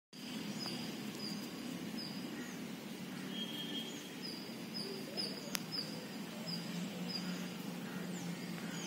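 Outdoor ambience: a bird repeats a short high chirp over and over, roughly every half second, over a low steady hum, with one sharp click about halfway.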